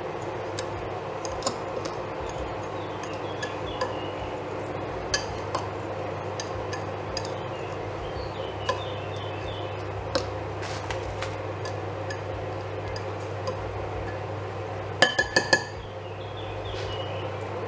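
A metal utensil stirring a dry, crumbly nut-and-seed mixture in a glass bowl, with scattered light clinks and scrapes against the glass over a steady low hum. About fifteen seconds in come four sharp clinks close together, the loudest sounds here.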